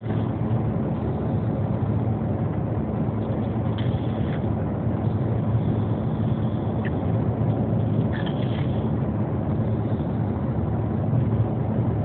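Steady engine and road noise inside a car, with a faint breathy sound recurring about every four seconds: a small child snoring in his sleep.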